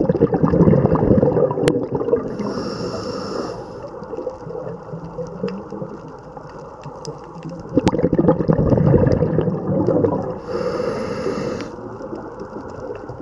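Scuba diver breathing through a regulator underwater: two long bursts of bubbling exhalation, each followed by the hiss of an inhale lasting about a second.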